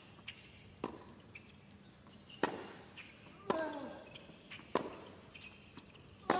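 Tennis rally on a hard court: sharp racket strikes on the ball about every second or so, with the ball bouncing between them. Some of the strikes come with a short grunt from the hitter.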